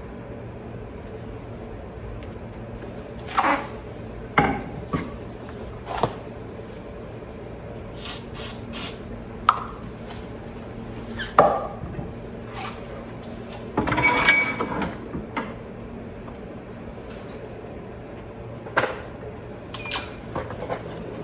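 Scattered knocks, clicks and light rattles of tools and objects being handled on a workbench, over a steady low hum. A denser clatter comes about two-thirds of the way through.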